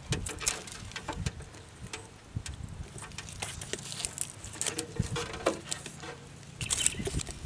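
Irregular clicks, crackles and rustles of an old, tape-wrapped wiring harness being handled and pulled apart by hand, over a faint steady low hum.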